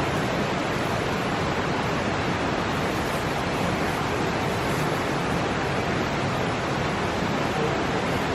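Steady, even rushing noise with no distinct events, of the kind made by running water, heavy rain or wind.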